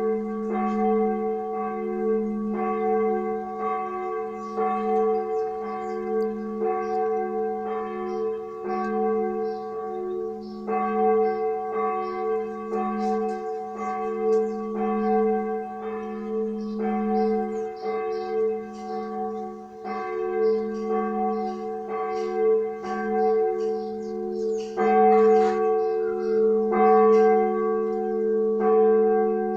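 A large bell ringing repeatedly, struck about once a second, each stroke ringing on into the next over a steady deep hum. The strokes grow louder about 25 seconds in.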